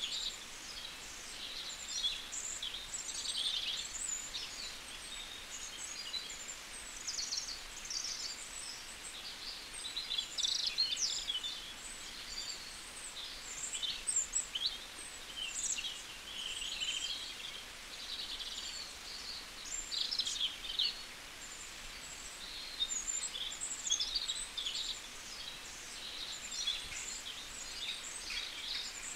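Small birds chirping and twittering in quick high-pitched clusters every second or two, over a faint steady outdoor hiss.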